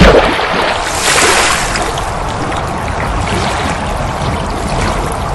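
Rushing, splashing water sound effect, opening with a sharp hit and swelling about a second in, then running on as a steady wash.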